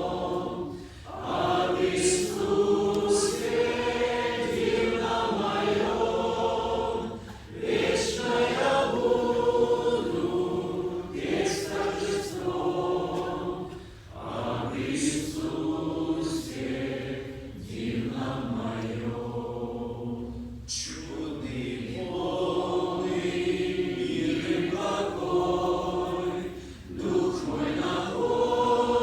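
A group of voices singing a slow hymn together in long sustained phrases, with short breaks between the lines.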